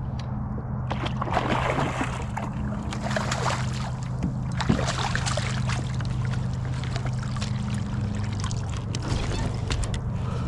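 Water sloshing and splashing against a kayak, with scattered clicks and knocks from gear and hull, over a steady low hum, while the angler fights a hooked striped bass.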